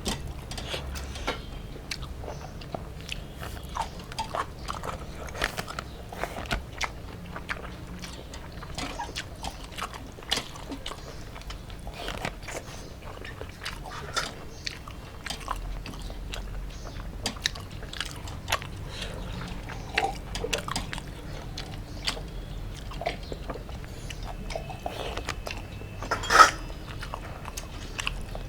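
People chewing and biting food close to the microphone, with many small, irregular clicks and crunches. There is one louder sudden sound near the end.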